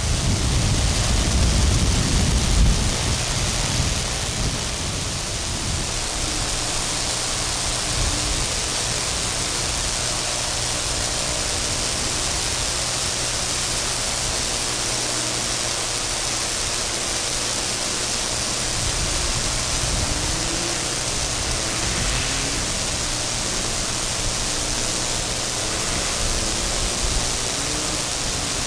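Half-track snow rail buggy driving over snow, its motor faint and distant under a steady hiss; the low drone is stronger in the first few seconds as it pulls away, and its pitch wavers up and down in the second half.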